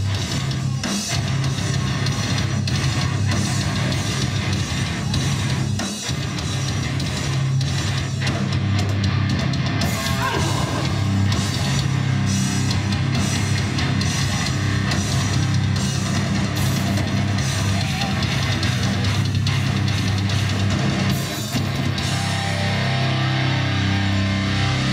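A live hardcore band playing loud, heavy music: electric guitars and a drum kit pounding steadily, with the riff changing about 22 seconds in.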